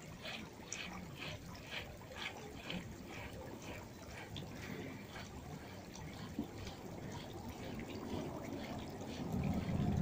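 Crunch of guardsmen's boots marching on gravel, a regular beat of about two steps a second that fades after a few seconds. A military band starts playing right at the end.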